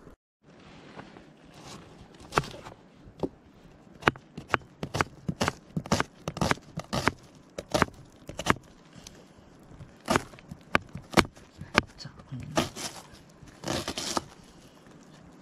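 Kitchen knife chopping a red onion on a plastic cutting board: a run of sharp, irregular knocks, some coming in quick clusters.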